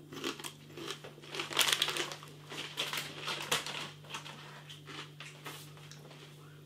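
Crackly crunching and crinkling from crisp pork scratchings and their packet, in irregular clusters, thinning out after about four seconds. A low steady hum runs underneath.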